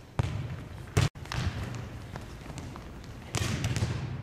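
Sharp thumps of a volleyball being played, echoing in a gym. The loudest comes about a second in and is followed by a brief drop-out of all sound. A few softer knocks come later.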